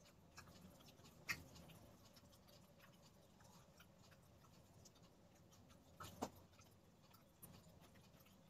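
Near silence with faint clicks and smacks from a toddler eating by hand, two sharper clicks about a second in and about six seconds in.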